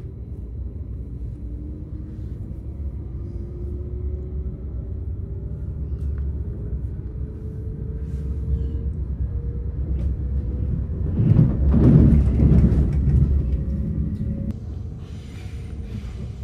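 Low rumble of a moving train heard from inside the carriage, with a faint whine slowly rising in pitch. The rumble swells into a louder, noisier stretch about eleven seconds in, then settles again.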